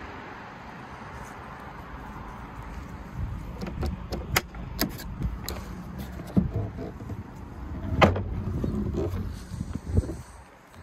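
Folding wheelchair ramp in a Volkswagen Caddy Maxi Life WAV being unlatched and lowered: a run of metal clicks and knocks, a heavier clunk about eight seconds in, and a last knock at about ten seconds as it comes down.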